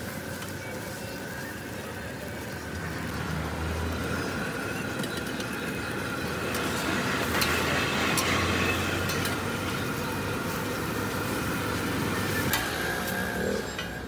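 Steady background noise of kulcha breads cooking on a large flat iron griddle, with a low rumble that swells twice and a few sharp metal clicks from the utensils.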